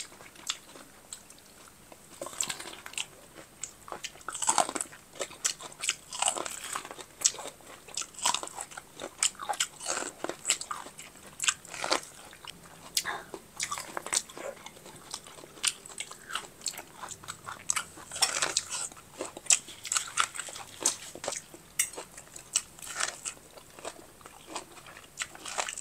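Someone biting and chewing sweet corn: a quick run of short crunchy bites and chewing clicks, several a second.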